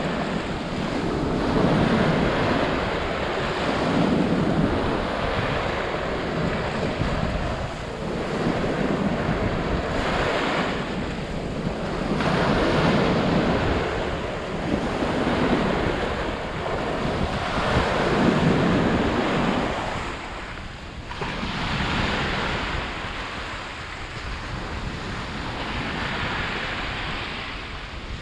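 Sea surf: waves breaking and washing in, swelling and fading every few seconds, with wind rumbling on the microphone.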